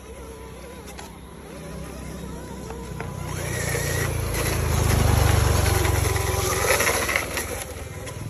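Radio-controlled model truck's electric motor and gears whirring as it drives past close by, with its tyres on gritty ground. It builds up about three seconds in, is loudest around the middle, and eases off near the end.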